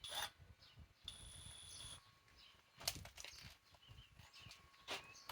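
Faint bird chirping over a quiet background, with a few sharp clicks: one right at the start, one about three seconds in and one near the end.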